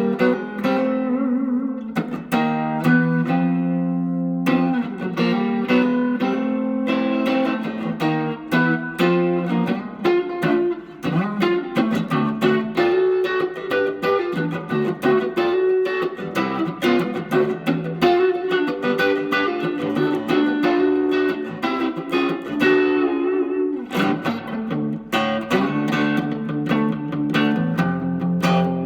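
Electric guitar playing single-note lines and chords on its neck pickup, a Fender Fat 60s single coil fitted to a Reverend Eastsider S. It is played through an amplifier, with continuous picked phrases.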